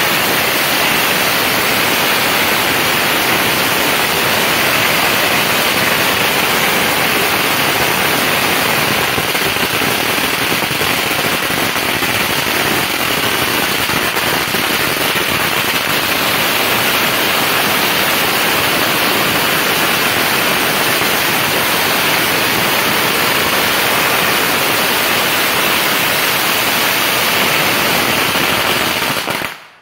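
A 16,000-count string of firecrackers going off, a dense, unbroken crackle of rapid small bangs at a steady loudness. It cuts off suddenly near the end.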